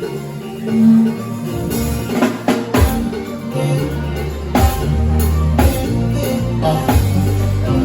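Live band playing during a sound check: drum kit with bass drum hits under sustained bass and guitar notes.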